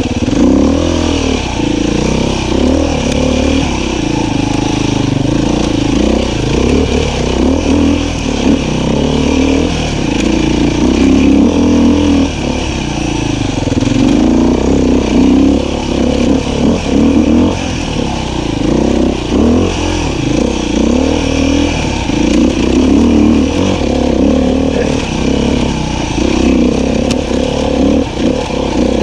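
Beta 500 RR-S single-cylinder four-stroke dirt bike engine being ridden on trail, the revs rising and falling constantly as the throttle opens and closes.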